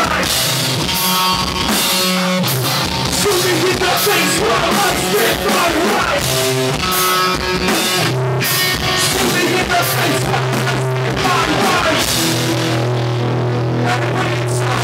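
Live hardcore-grime band playing loud, with drum kit, distorted guitar and bass. Near the end the drum hits thin out, leaving a held low bass note.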